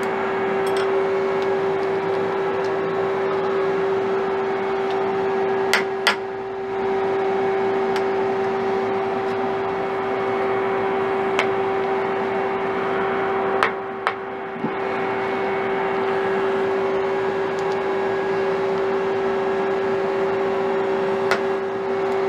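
Steady machine hum with one constant mid-pitched tone, over which a hex key clicks sharply against a knurling tool holder in a CNC lathe's turret as it is tightened and adjusted: two pairs of clicks and a single one near the end.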